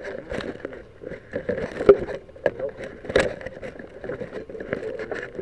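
Handling noise picked up by the small camera's own microphone: rubbing and scraping with several sharp knocks, the loudest about two and three seconds in, as the camera is pushed into a model rocket's cardboard body tube.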